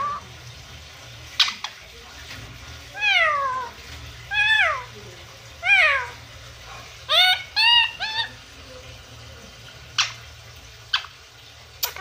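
Pet parakeet calling: three drawn-out calls that fall in pitch, then three shorter calls in quick succession, with a few sharp clicks before and after.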